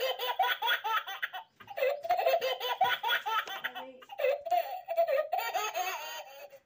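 High-pitched laughter in three long bouts of rapid ha-ha pulses, with short breaks between them.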